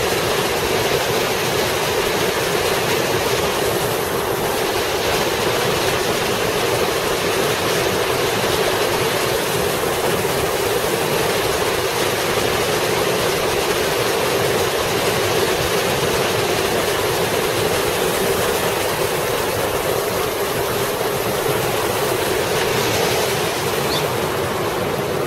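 Waterfall pouring into a rocky river pool: a steady, even rush of water.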